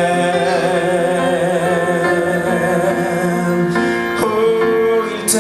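A French Christian worship song: a singer holds a long note with vibrato over sustained instrumental backing, moving to a new note about four seconds in.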